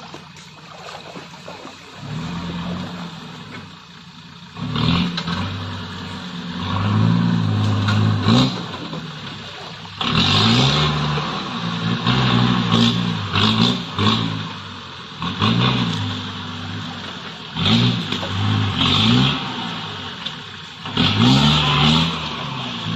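Off-road Jeep's engine revving up and down in repeated bursts as it crawls through a deep, tilting rut. It is faint at first and gets louder from about five seconds in.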